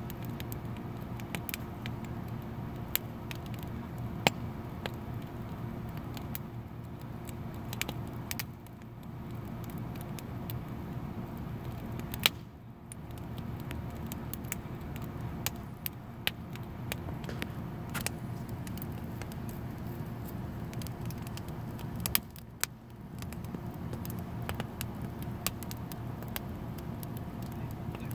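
Wood fire of dry sticks and branches crackling, with scattered sharp pops and snaps over a steady low hum.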